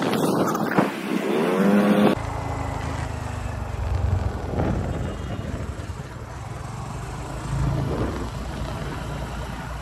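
For about the first two seconds, a drawn-out call that rises and falls in pitch over road noise. Then, after an abrupt cut, wind rushing over the microphone and the low drone of a scooter engine while riding.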